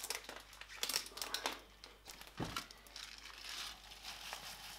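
Plastic bag of rice crinkling as it is handled, with a dull knock about halfway through, then a soft hiss as dry rice is poured from the bag into a saucepan.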